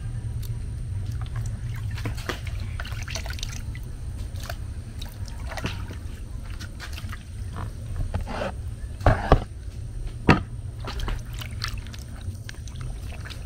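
Hands sloshing and squeezing food in a plastic bowl of water, washing it, with irregular splashes and drips. A few sharp knocks stand out about nine and ten seconds in.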